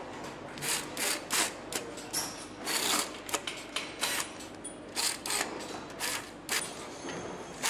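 Hand-held pneumatic screwdriver driving bolts into the bottom end of an engine block: about a dozen short, irregular bursts of hiss and clicking.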